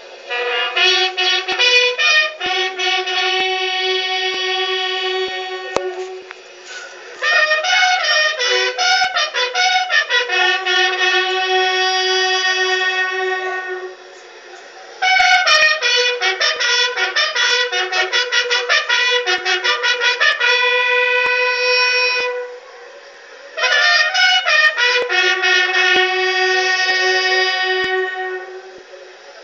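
Police buglers playing a bugle call in unison as a funeral salute, in four long phrases separated by brief pauses, heard through a TV speaker.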